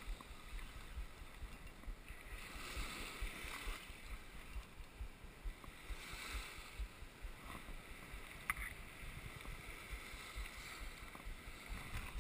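Small waves washing up on a sandy beach, swelling twice, with wind rumbling on the microphone. There is one sharp click about eight seconds in.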